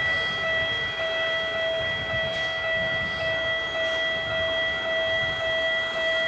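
Japanese railway level-crossing warning bell ringing without a break at a steady pitch, the signal that a train is approaching.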